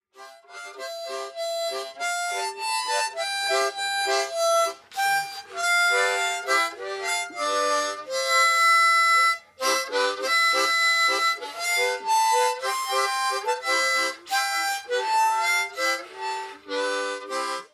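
Solo harmonica playing a tune in single notes and chords, with no other instruments. It cuts off abruptly near the end.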